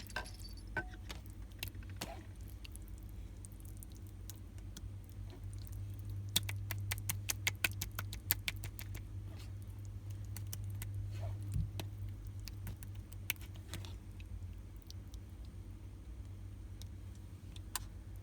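Homemade slime made from soaked cooling gel patches being handled and squished, giving small wet clicks and crackles, with a quick run of clicks about six to nine seconds in. A steady low hum runs underneath.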